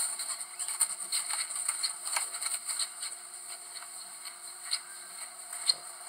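Irregular light clicks and taps, a few a second, over a steady high hiss.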